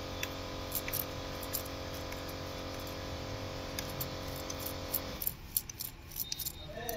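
Light metallic clinks and clicks of hand tools and engine parts being handled, over a steady electrical hum that cuts off about five seconds in.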